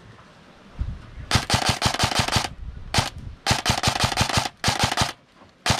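Airsoft rifle firing in rapid bursts of sharp snaps, about ten shots a second. A burst of about a second comes a little over a second in, then a single shot, then a second burst of about a second, a shorter burst, and a quick one at the very end.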